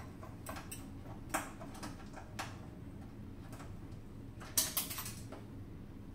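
Scattered light clicks and knocks of hands working the resuscitator's plastic and metal housing, with a louder cluster of knocks about four and a half seconds in. A faint steady low hum runs underneath.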